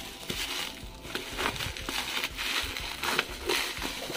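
Bubble wrap crinkling and cardboard rustling as hands pull the plastic wrapping off a parcel, in irregular scratchy bursts.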